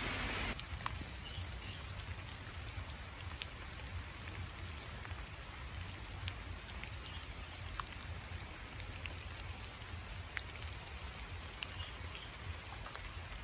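Light rain: scattered drops ticking over a faint, even hiss, with a steady low rumble underneath.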